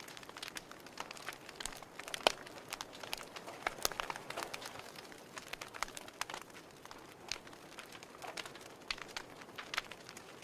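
Fire crackling steadily, with irregular sharp pops and snaps; the loudest pops come a little over two seconds in and again about four seconds in.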